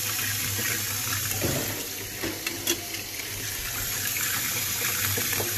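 Kitchen faucet running steadily, its stream of cold water splashing into a saucepan of water in a stainless steel sink. A couple of brief knocks come partway through.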